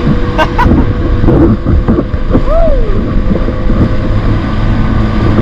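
A small boat's engine running steadily while under way at sea.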